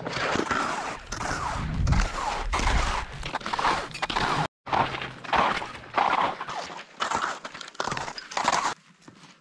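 Ski-touring skis sliding and crunching over crusty spring snow, a rhythmic swish with each stride, about one every half second. A brief silent gap near the middle.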